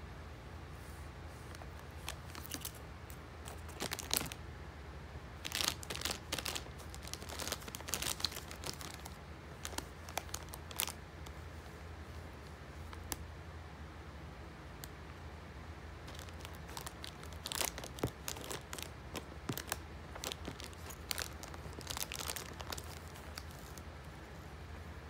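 A plastic candy bag crinkling as a cat noses into it. The crackling comes in irregular spells, a busy stretch of several seconds, a pause of a few seconds, then another stretch.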